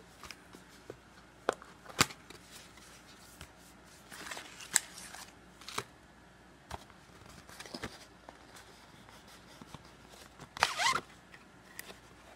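Unboxing handling sounds of a cardboard card-game box and its contents: scattered sharp clicks and taps, the loudest about two seconds in, and a short crinkling rustle near the end.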